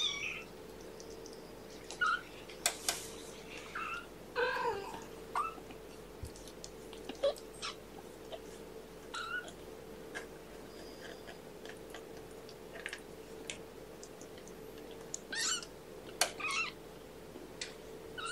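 Three-week-old kittens mewing: short, high calls that bend in pitch, every second or two, with a few sharp clicks between them. A faint steady hum runs underneath.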